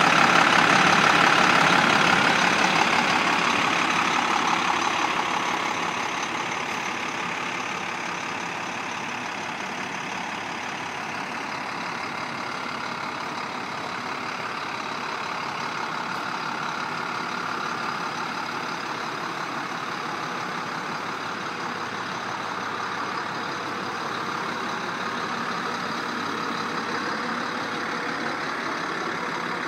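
International DT466 inline-six diesel in a 2005 International 4300 dump truck idling steadily. It is louder at first and eases off over the first several seconds.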